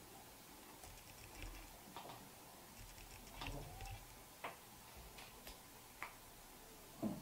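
Faint, irregular clicks and taps of fingers pressing and smoothing a plastic screen-protector film on a Canon SL2's rear screen and handling the camera body, with a louder knock near the end.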